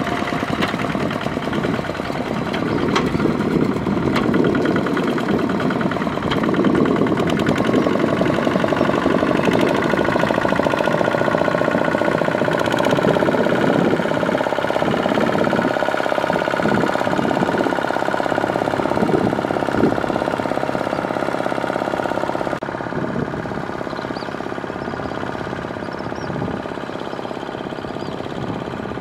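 Single-cylinder Kubota ZT155 diesel engine of a two-wheel walking tractor, running steadily under load as it drags a leveling board through paddy mud. It is a little quieter for the last few seconds.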